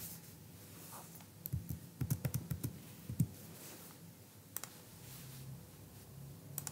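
Typing on a computer keyboard: a quick run of keystrokes from about one and a half to three and a half seconds in, then a couple of single clicks.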